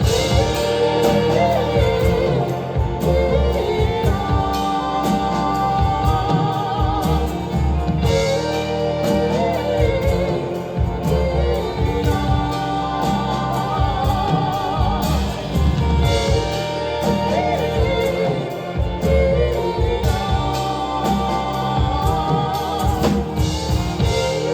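Live band music: the full band comes in loud with drums and bass, and a singing voice with vibrato holds wordless lines over it.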